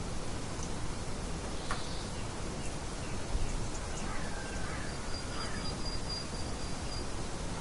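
Steady hiss of light wind with birds calling over it: a short chirping phrase about four seconds in, then a thin, high, steady note held for about two seconds near the end.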